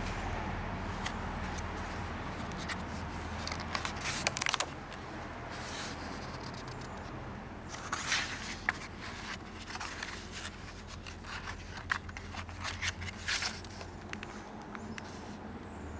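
Stiff, paint- and collage-covered pages of an art journal being turned and handled. They give crackling, papery rustles in clusters about four seconds in, around eight seconds, and several times near the end, over a steady low hum.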